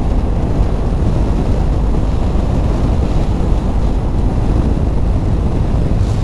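Steady wind rush buffeting the microphone on a Honda CB500F motorcycle at road speed, with the bike's running noise underneath.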